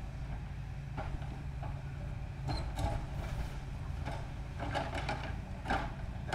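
Tracked excavator's diesel engine running with a steady low hum, while its demolition grapple works the brick wall, giving several separate clatters and scrapes of rubble.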